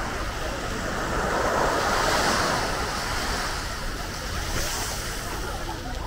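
Sea surf on a beach: a wave breaks and rushes in, swelling to its loudest about two seconds in, then washes back out.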